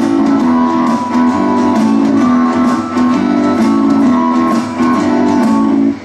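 Music: a pop-rock backing track with a repeating guitar riff and chords, which cuts off suddenly at the end.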